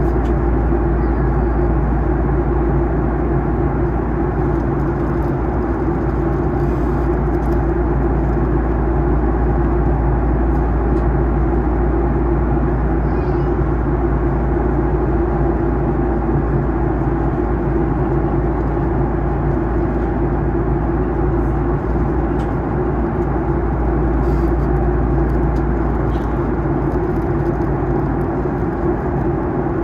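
Steady cabin noise inside a Boeing 737-800 in descent: a constant rush of airflow and the hum of its CFM56-7B engines, with a few steady tones running through it.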